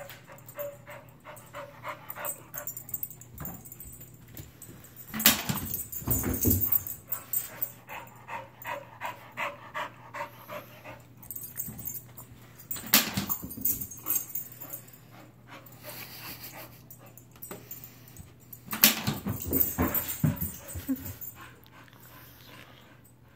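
A dog whimpers and yips while playing with an iFetch Too automatic ball launcher. Three sharp knocks come from the launcher firing the tennis ball, each followed by a few seconds of scrabbling and bouncing. A steady low hum runs underneath.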